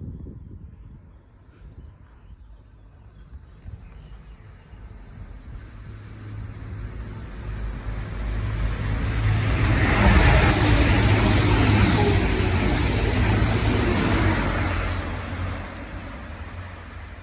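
A train passing at speed: its rumble swells over several seconds, is loudest for a few seconds past the middle with a steady low hum and a thin high whine, then fades away.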